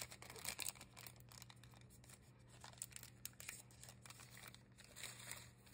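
Faint crinkling and rustling of a torn-open baseball card pack wrapper as the stack of cards is slid out of it, with small scattered crackles.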